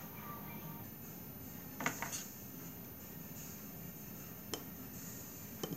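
A few sharp clinks of a steel kitchen knife against a mixing bowl, two close together about two seconds in and two more later, as an avocado is cut and diced over the bowl.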